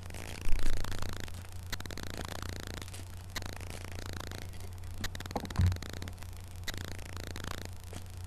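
Hands shuffling a stack of foil-wrapped SPX basketball card packs: rapid, irregular rustling, scraping and crinkling of the wrappers against each other. There is a sharp thump about half a second in.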